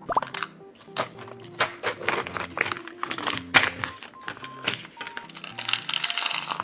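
Foil lid peeled off a plastic Biyott yogurt cup with many sharp crinkles and crackles, then plastic crinkling as the cup's topping compartment is bent over to tip the chocolate cereal into the yogurt near the end. Background music plays throughout.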